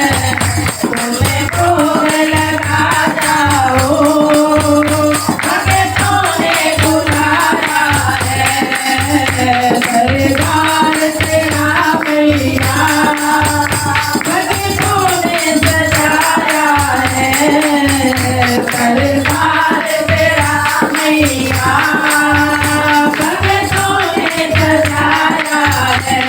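Hindu devotional bhajan music: a melody line over a steady drum beat with tambourine jingles.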